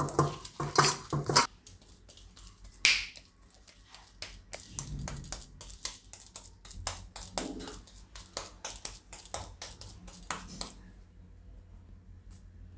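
Hands kneading jowar flour dough in a steel bowl, then patting the dough ball between the palms: a long run of quick light slaps that stops about eleven seconds in.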